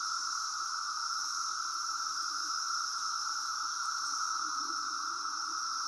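A chorus of many cicadas making a steady, unbroken drone at two pitches, one high and one lower.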